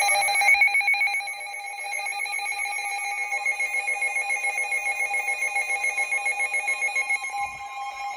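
Emergency Alert System alert tones: a loud electronic warbling tone that starts abruptly and pulses rapidly, with a second, lower tone joining near the end.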